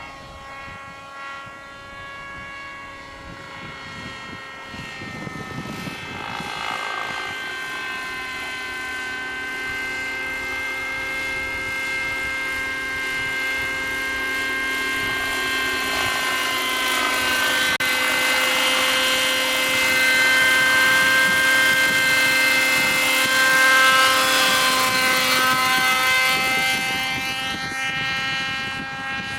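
Hirobo Shuttle RC model helicopter in flight, its OS 37 glow engine running with a steady whine whose pitch wavers a little. It grows louder over about twenty seconds, then fades near the end.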